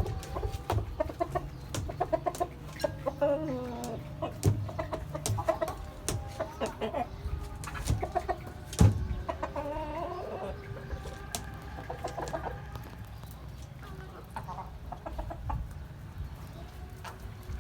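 Backyard hens clucking, several birds with short bending calls that thin out toward the end, mixed with scattered sharp clicks and knocks, the loudest about nine seconds in, over a steady low rumble.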